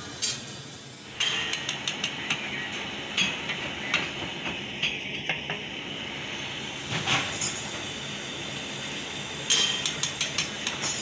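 Scattered light clicks, taps and clinks of hand work with tools and hard parts, a quick cluster of them near the end, over a steady background noise that comes up about a second in.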